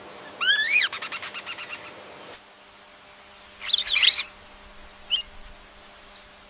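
Bird calls. A rising call leads into a rapid run of notes that slows and fades, then a pair of sharp chirps follows, with single short chirps after.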